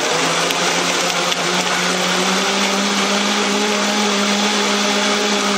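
Countertop blender running at full speed, churning a smoothie base of coconut milk, banana, chia seeds and whole strawberries: a steady motor hum over liquid churning, its pitch stepping up slightly about two seconds in.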